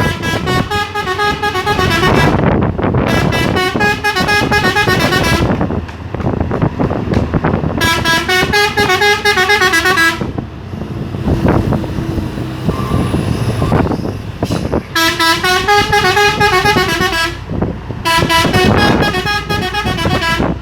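Three-trumpet telolet horn on a Hino truck playing its warbling multi-note tune in five bursts of about two seconds each. Truck engine and road noise run underneath.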